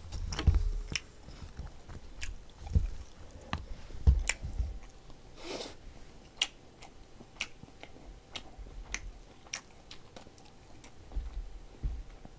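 A person chewing food close to the microphone: wet mouth clicks and smacks scattered throughout, with soft low thumps and a brief rushing noise about five and a half seconds in.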